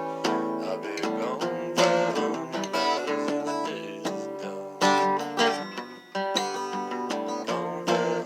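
Acoustic guitar strummed and picked in a steady folk rhythm, playing a song.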